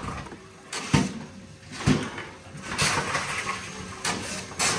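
Tomra T-53 reverse vending machine taking in a plastic bottle: a series of sharp knocks and clunks from its intake mechanism, with mechanical rattling in between.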